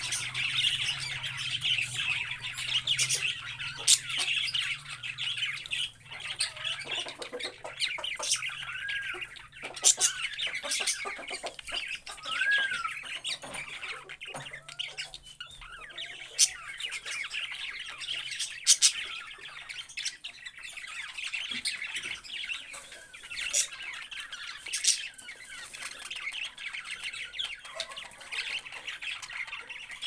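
A flock of budgerigars chattering and warbling without a break, with sharp chirps scattered throughout and two short rise-and-fall whistled notes near the middle.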